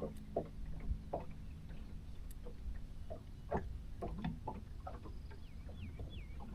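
Scattered light taps and clicks at an uneven pace, with a few short chirps from a bird near the end.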